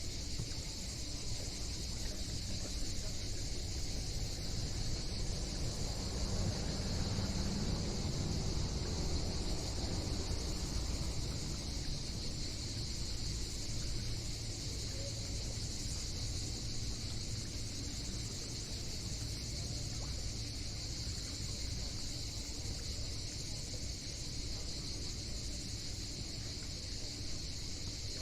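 Cicadas droning steadily in a high, even chorus over a low rumble that swells about six seconds in and eases again by about ten seconds.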